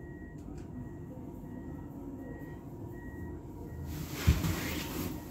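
Gondola cabin of a cable car in motion: a steady low rumble. Near the end a hiss sets in and a single heavy thump sounds.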